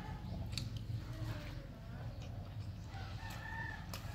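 A rooster crowing faintly, with a drawn-out held call about three seconds in, over a low steady hum and a few soft clicks.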